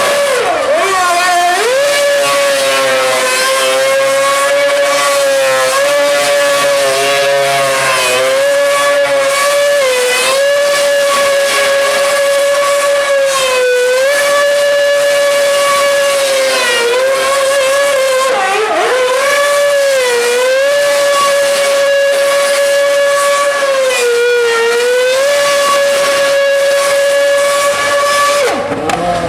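Mercedes Formula 1 car's engine running at high, nearly constant revs. It makes a loud, steady, high-pitched note that dips briefly every few seconds and then climbs straight back.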